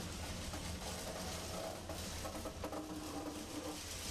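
Heavy diesel machinery running steadily, from an excavator working while it loads trucks. A steadier, higher tone joins the engine noise for about two seconds in the middle.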